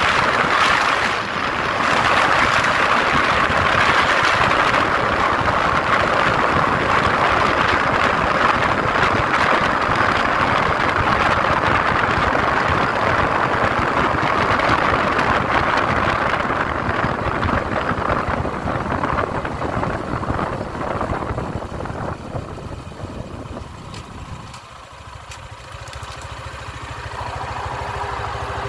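Small 150 cc motorcycle running at highway speed, with wind rushing over the microphone. Past the middle the engine sound and wind die away as it slows and rolls to a stop, the engine idling in neutral. Near the end an oncoming truck grows louder as it approaches.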